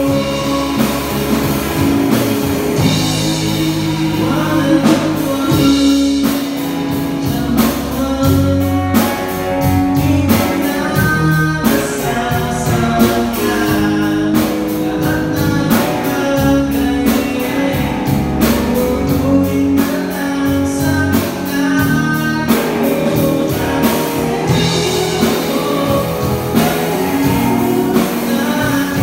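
A rock band playing live: electric guitar, electric bass and drum kit, with a singer's lead vocal over them.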